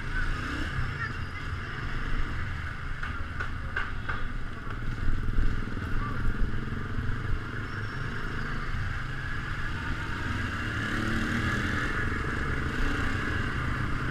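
Keeway Cafe Racer 152 motorcycle engine running steadily while riding on the road, with a few short clicks about four seconds in.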